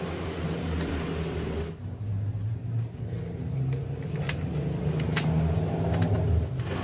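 A few sharp clicks and knocks from the plastic and metal parts of a copier's exit unit being handled, over a steady low rumble.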